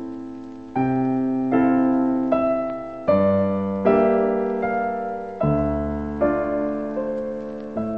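Piano music: a slow run of chords, a new chord struck about every three-quarters of a second and fading away before the next.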